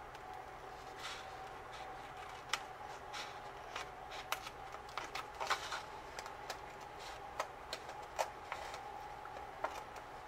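Scissors snipping through planner paper in short, irregular cuts, trimming close to the binding discs, with a quicker run of snips around the middle. A faint steady hum sits underneath.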